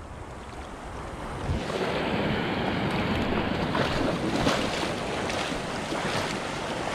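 Footsteps splashing and sloshing through shallow water over a coral reef, over a steady wash of surf, getting louder about two seconds in.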